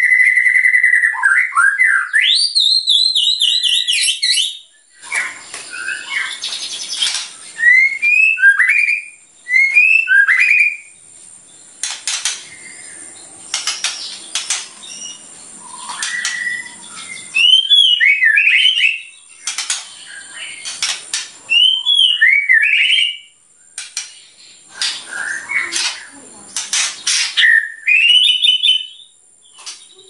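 White-rumped shama singing loudly. It opens with a long steady whistle that breaks into swooping glides, then goes into a run of short whistled phrases, each a few quick up-and-down sweeping notes, with brief pauses between them and sharp clicking notes mixed in.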